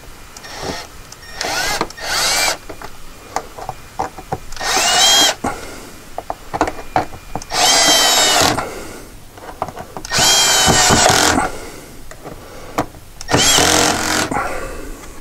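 Cordless drill/driver driving screws into the cover of a PVC electrical junction box in several short runs of about a second each. The motor's whine climbs in pitch as each run starts.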